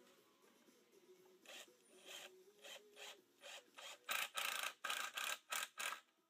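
Cordless drill driving a screw into a spruce board in short pulses of the trigger, the screw grinding into the wood. The pulses come about twice a second at first, then longer and louder from about four seconds in, stopping just before the end.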